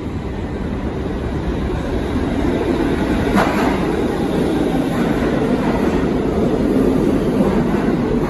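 New York City subway train running along the station platform track: a steady, loud rumble of steel wheels on rail, with a couple of sharper clacks about halfway through.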